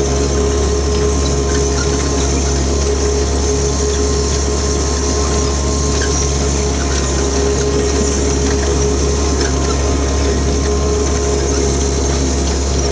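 Jacobsen HR-5111 diesel mower engine running steadily while the machine is driven, with a steady whine over the low engine rumble.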